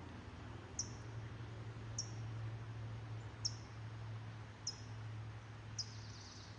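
A small animal's short, high chirp, repeated five times about every second and a quarter, each note dropping slightly in pitch, over a steady low hum.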